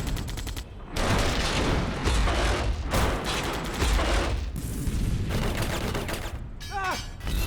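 Sound-designed film battle effects: rapid, dense bursts of automatic gunfire over deep rumbling booms. Near the end come a few short falling tones.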